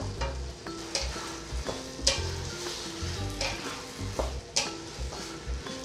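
Pork, banana peppers and basil sizzling in a hot wok as they are stir-fried. A wooden spatula scrapes and tosses them with a sharp stroke about once a second.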